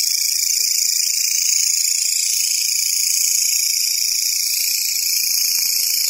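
Grasshoppers stridulating: a continuous, steady, high-pitched buzzing trill with no breaks.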